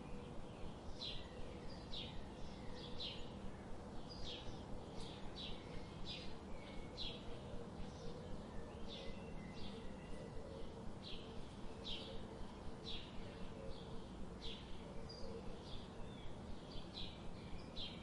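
Small birds chirping: short, high chirps repeating about twice a second over a steady background hiss.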